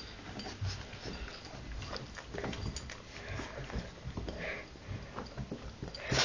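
A small dog sniffing and snuffling right at the microphone, with scattered clicks and rustles.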